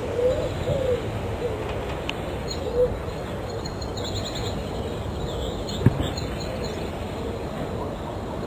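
A bird cooing: a run of short, low notes, most of them in the first three seconds and fainter later, over a steady hiss. One sharp click sounds about six seconds in.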